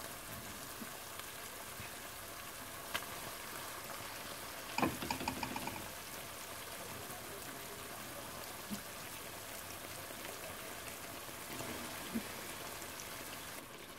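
Masala gravy sizzling steadily at a low level in a stainless steel pan as koftas are set into it one at a time. A few light clicks, with a brief clatter about five seconds in.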